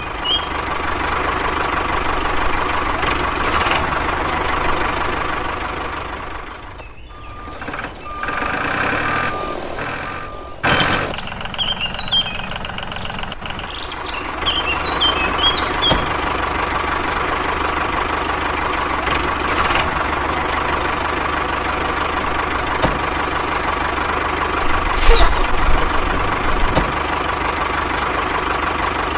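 Miniature model tractor running, a steady mechanical drone with a high whine held through it; it drops off briefly about seven seconds in and picks up again. A few bird chirps come near the start and around twelve seconds in.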